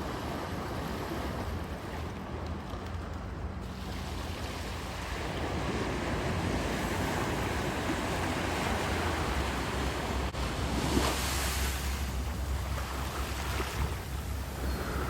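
Ocean surf washing and breaking on the beach, with a louder surge about eleven seconds in, over a low rumble of wind buffeting the microphone.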